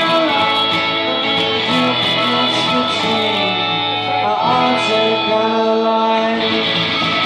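Live band music: acoustic and electric guitars playing, with held sung notes over them.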